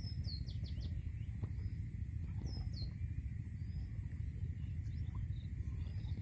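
Small birds chirping in short, falling notes, a cluster at the start and another about two and a half seconds in, over a steady low rumble and a constant high hiss.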